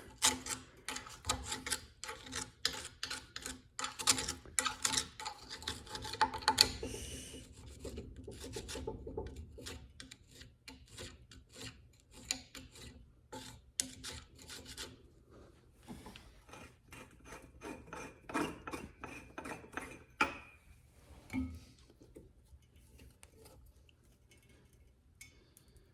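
Rapid scraping and clicking inside a drill press head as old mouse nest debris is dug out of the quill mechanism, the debris that is jamming the quill. The scraping is dense for the first several seconds, thins out, and picks up again for a few seconds past the middle.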